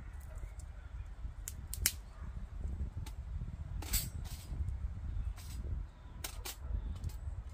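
Dry twigs snapping and clicking as they are handled and packed into a small metal twig-burning stove: a handful of sharp, separate snaps, the loudest about two seconds and four seconds in, over a steady low rumble.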